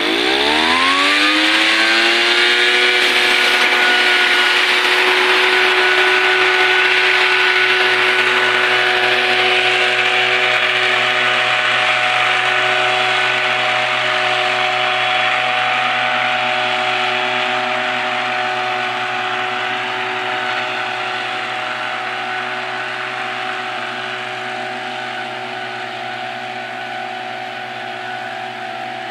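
Small engine of a two-man tea harvester revving up quickly from low to high speed, then running steadily at high speed. It slowly grows quieter over the second half.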